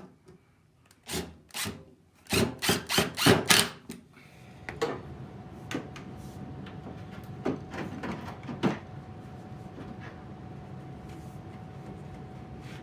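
Sharp knocks on wood: two single knocks, then a fast run of about six louder ones, as a wooden blank is worked into the end of a PVC pipe. From about halfway through, a steady low hum with a faint high whine carries on under a few lighter knocks.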